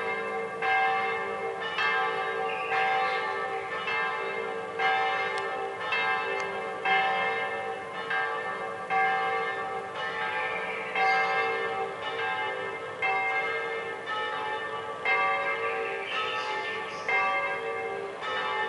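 Church bells ringing, about one strike a second, each ring carrying over into the next.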